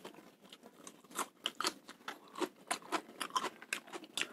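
Close-miked eating sounds: chewing and mouth clicks over a mouthful of fried rice eaten by hand, coming as quick, irregular small crackles.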